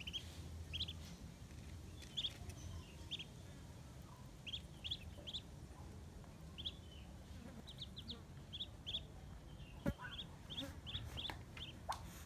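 Muscovy duckling peeping: short high peeps, mostly in quick clusters of two or three, repeating throughout. There is one sharp click about ten seconds in.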